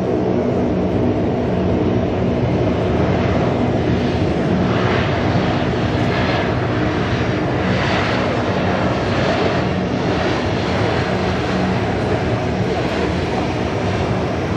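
Airbus A321-231's IAE V2500 turbofan engines running as the airliner rolls out along the runway after landing. The sound is a steady jet noise over a low hum, swelling through the middle as it passes.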